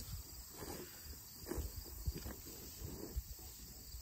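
Faint outdoor ambience: irregular low rumbling noise with scattered soft rustles and knocks, and insects chirping faintly.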